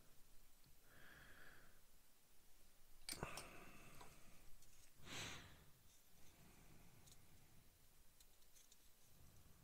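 Near silence at a workbench, broken by a sharp click about three seconds in and a short breathy exhale about two seconds after it.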